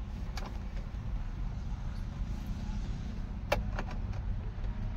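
Steady low background rumble, with one sharp click about three and a half seconds in.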